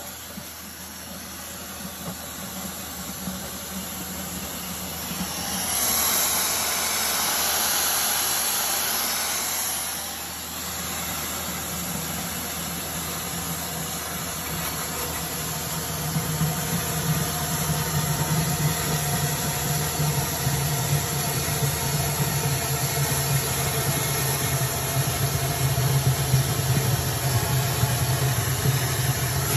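Compressed-air-driven Spillrite drum vacuum running as its hose sucks fluid out of a drum: a steady hiss of air that swells louder for about four seconds a fifth of the way in, then a low hum that grows stronger from about the middle on, its level fluttering quickly.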